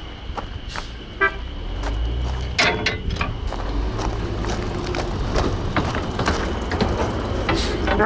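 Small forest-railway diesel locomotive's engine running as it closes in at low speed, with a short horn toot about two and a half seconds in. Scattered footsteps and clicks over the engine.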